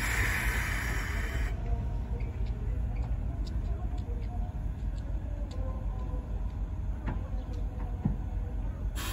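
Compressed air hissing from the D51 146 steam locomotive, which is run on compressed air rather than steam, for about a second and a half at the start. Then a low rumble with a few faint clicks, and another hiss of air begins near the end.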